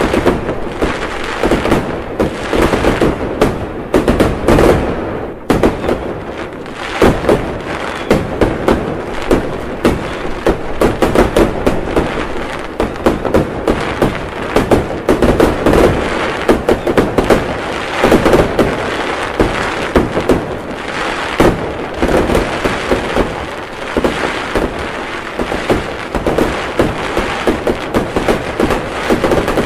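Fireworks going off in a dense, continuous barrage of overlapping bangs and crackles, with no pause.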